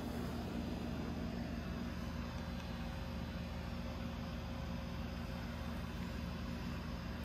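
Steady low mechanical hum with a faint hiss, unchanging throughout.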